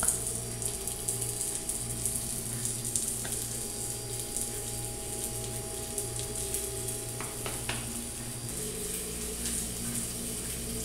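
Floured tilapia steaks sizzling on a hot flat griddle greased with pork lard, with a few light knocks as more pieces are set down. A steady low hum runs underneath.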